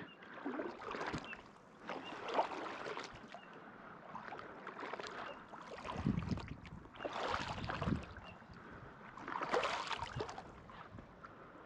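Someone wading through a stream: water sloshing and splashing around the legs in uneven surges every second or two.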